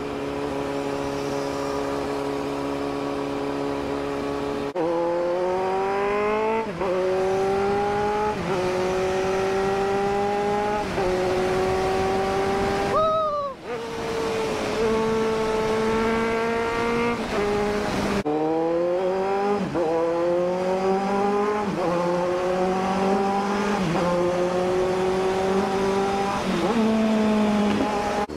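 Kawasaki Z900 inline-four engine under hard acceleration. Its note holds steady at first, then climbs in pitch and drops back at each upshift, over and over, with a sharp rev spike and dip about halfway through.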